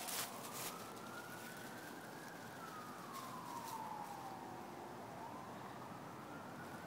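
An emergency-vehicle siren wailing: its pitch climbs for about two seconds, sinks slowly for nearly three, then climbs again. Short crackling rustles of dry leaves, from a small dog rooting through them, come near the start and again about three seconds in.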